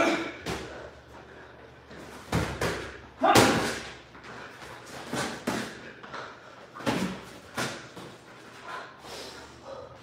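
Boxing gloves landing punches in sparring: an irregular series of sharp thuds, a dozen or so, the heaviest about three and a half seconds in.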